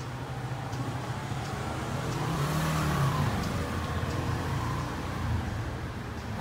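A motor vehicle passing on the street outside. Its engine grows louder, peaks about three seconds in with a rising-then-falling pitch, and fades again over a steady background hum.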